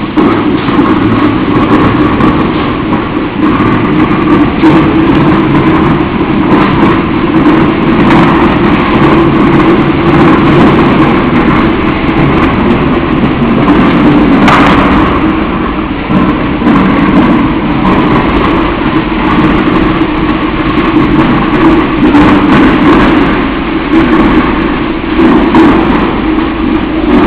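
Screed being blown through a pneumatic conveying hose into a tripod-mounted discharge pot: a loud, steady rushing noise with scattered sharp clicks.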